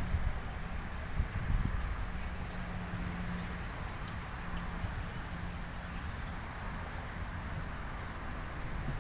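Outdoor background with a bird chirping high and quick, about twice a second, fading out after a few seconds, over a steady insect hiss. A few soft low knocks come near the start.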